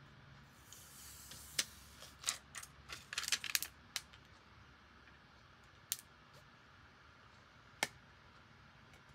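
Clicks and taps from hands handling a phone in a plastic case on a desk: a quick run of clicks in the first few seconds, then two single sharp clicks.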